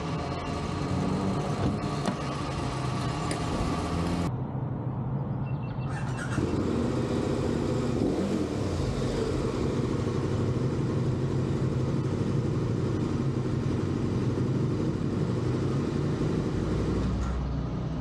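An engine running steadily, with an abrupt change in the sound about four seconds in.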